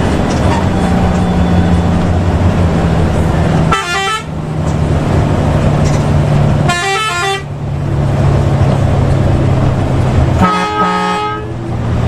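A multi-note bus horn sounds three short blasts, each stepping through several notes, over the steady low drone of a diesel bus engine and exhaust.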